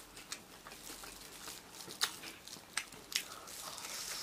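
Crunching and chewing of a fried chicken cutlet in a thick panko crust: several sharp crackles, strongest about two and three seconds in, and a longer crunch near the end as a bite is taken.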